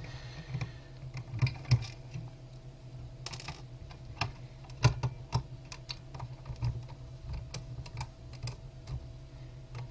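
Irregular light clicks and ticks of a hand screwdriver working Phillips screws out of a plastic hub case, the loudest about a second and a half in and near the middle, over a steady low hum.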